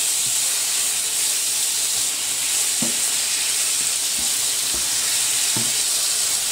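Thin strips of beef sizzling steadily in hot sunflower oil in a frying pan over high heat, being stirred with a spatula that knocks softly against the pan a few times.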